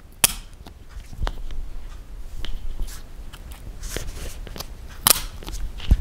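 Laptop DDR4 SO-DIMM RAM sticks snapping into their slot's spring clips as they are pressed down by both ends: sharp clicks, a strong one about a quarter second in and another about five seconds in, with lighter clicks and handling between. The click means the stick is seated and secured.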